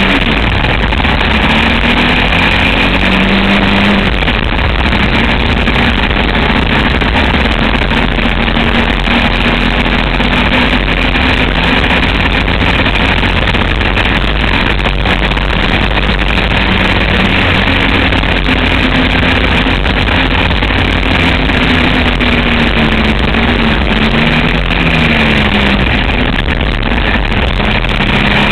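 Motorcycle trike's engine running hard at racing pace, its pitch rising and falling with throttle and gear changes, under a constant loud rush of noise.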